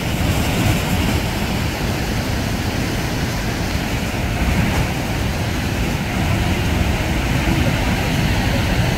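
Rhine Falls: the steady rush of a large waterfall's crashing water, with wind rumbling on the microphone.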